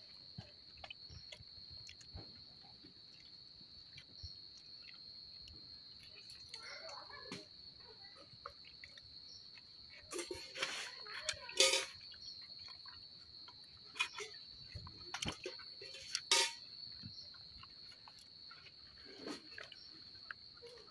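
Insects keep up a steady high-pitched trill throughout. Over it come scattered light clicks and a few sharper knocks, the loudest about halfway through, from hands scooping rice against steel plates and bowls while eating.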